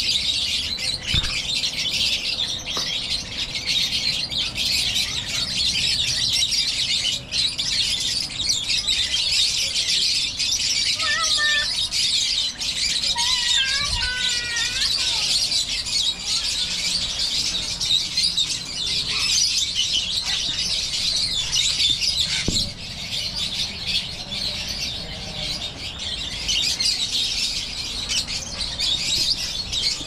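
A large flock of lovebirds chattering and chirping all at once, a dense, unbroken high-pitched twittering. A few lower, gliding whistled calls stand out about halfway through.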